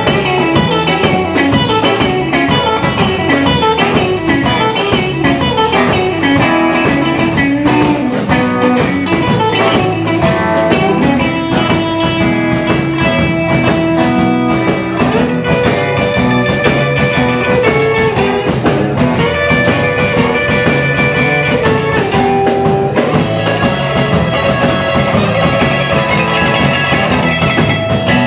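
Live blues band playing an electric guitar lead over drums: a long falling run of notes in the first several seconds, then long held notes that step up and down in pitch.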